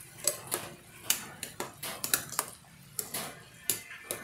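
Metal ladle clinking against the side of a metal pot of soup as it is stirred: about a dozen sharp, irregular clinks.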